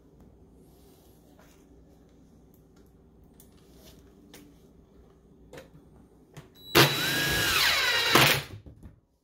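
A few light taps and knocks from handling the cabinet door, then a DeWalt cordless driver runs for about a second and a half near the end, driving a screw into the bifold door's hinge, its motor whine falling in pitch.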